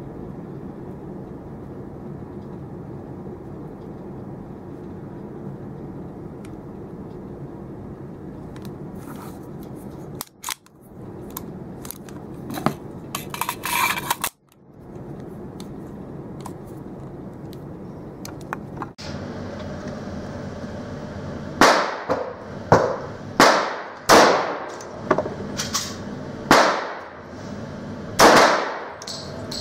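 Schroeder Bauman 1911 .45 ACP pistol fired about nine times at a steady pace on an indoor range, each shot ringing off the walls, in the last third. Before that, a steady low hum with a few light clicks of the pistol being handled and taken apart.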